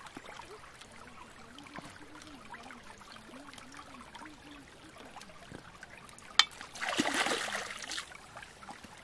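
Shallow stream trickling over stones, with a splash of water about two-thirds of the way in as food is washed in it by hand, just after a single sharp tap.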